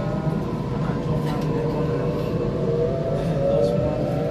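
Electric passenger train heard from inside the carriage as it pulls away: its traction motors whine and rise steadily in pitch from about three seconds in as the train gathers speed, over a steady rumble of wheels on the track.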